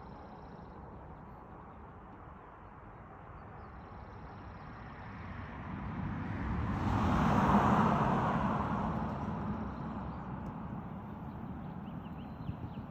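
A car driving past on the road: its tyre and engine noise swells to a peak about seven and a half seconds in, then fades away.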